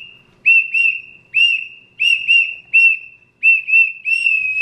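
A child blowing a small plastic toy whistle: a run of short, high, steady-pitched toots, about nine, some in quick pairs, with the last one held longer.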